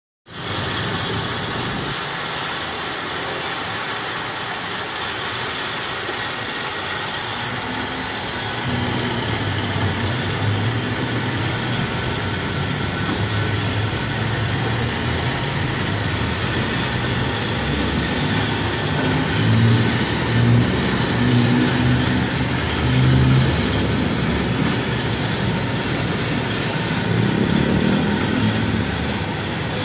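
Powered motorcycle loading deck on a pickup truck running steadily as it tilts and draws the bike up onto the bed. A lower, uneven rumble joins about eight seconds in.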